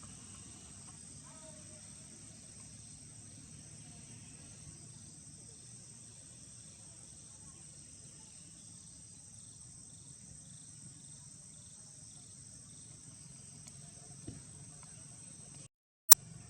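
Steady high-pitched chorus of insects, such as crickets or cicadas, over a low rumble. Near the end the sound cuts out for a moment, then there is a single loud sharp click.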